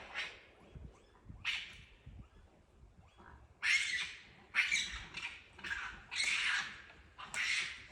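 A series of harsh, raspy screeches from an animal up in a tree: about six calls, each lasting around half a second. After a single call, the rest come roughly once a second through the second half.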